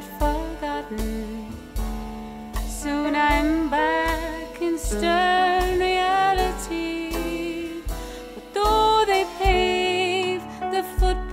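A woman singing a slow melody with vibrato, accompanied by an upright piano and a drum kit played with sticks, over a low beat that comes about every 0.8 seconds.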